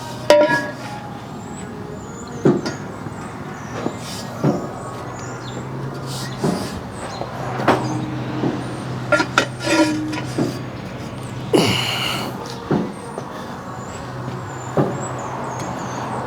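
Irregular metal clanks and knocks of hand tools and sockets working on stuck, stripped wheel lug nuts, over a steady low hum. There is a short burst of hissing noise about three-quarters of the way through.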